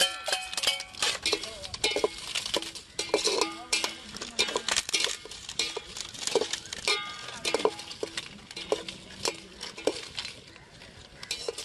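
A long metal skimmer spoon stirring chopped onions, tomatoes and dried chillies in oil in an aluminium pot. It scrapes and clinks against the pot's sides and bottom in irregular sharp metallic knocks with a short ring, about one or two a second.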